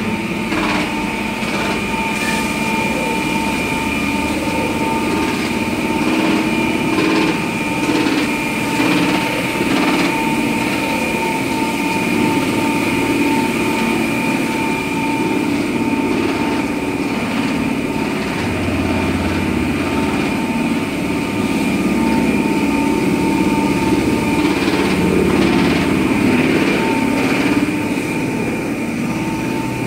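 Industrial board-production machinery running steadily, with a high whine and irregular knocks and clatters throughout.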